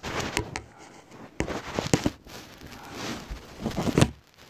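Handling noise from a phone being moved and touched close to its microphone: rustling and crackling with sharp knocks, the loudest knock about four seconds in.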